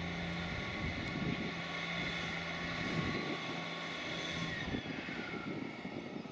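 Diesel trains passing: a Class 66 diesel freight locomotive's engine running, then a diesel multiple-unit passenger train. It makes a steady drone with a high whine. The pitch falls a little about five seconds in, and then the sound fades.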